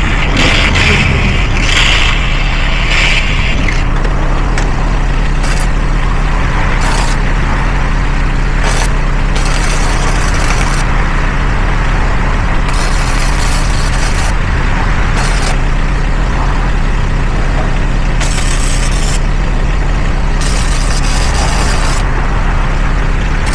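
MIG welder laying short stitch welds: repeated hissing, crackling bursts about one to two seconds long that start and stop, over a steady low engine-like hum.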